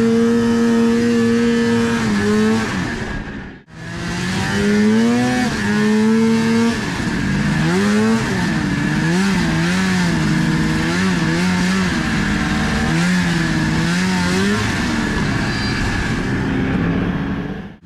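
Snowmobile's Rotax 583 two-stroke twin running under throttle. It holds a steady pitch, breaks off abruptly about four seconds in, then comes back and rises and falls again and again as the throttle is worked on and off.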